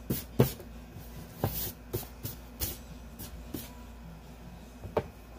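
A rubber eraser scrubbing pencil marks off drawing paper, with a hand sweeping the paper: a run of short rubbing and brushing strokes, and a sharper knock about five seconds in.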